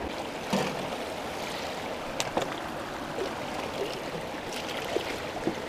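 Shallow mountain creek running steadily over rocks, with a few short, sharp knocks scattered through it.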